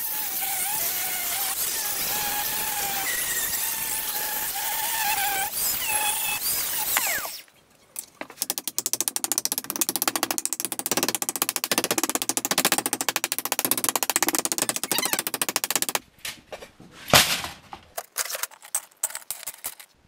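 Angle grinder cutting copper pipe clamped in a bench vise, a continuous grind with a wavering whine for about seven seconds before it stops. Then rapid hammer blows on the copper in the vise, several a second for about eight seconds, followed by a few scattered knocks, one loud one near the end.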